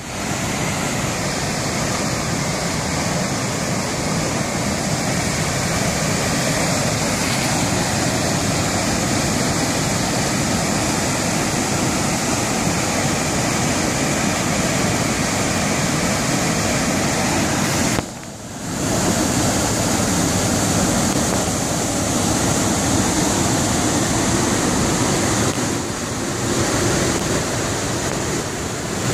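A waterfall and the white-water rapids below it, rushing steadily. The sound dips briefly about two-thirds of the way through.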